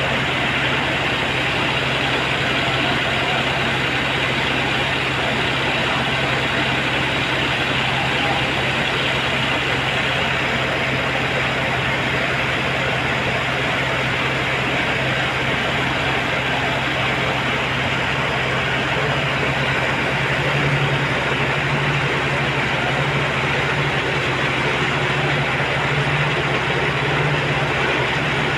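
A heavy engine of construction machinery running steadily at a constant speed, a low hum under a dense mechanical noise, the hum wavering slightly in the last third.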